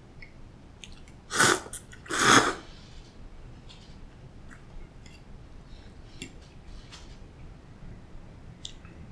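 Two loud, short slurps of cold soba noodles, about a second apart, followed by quiet chewing and small clicks.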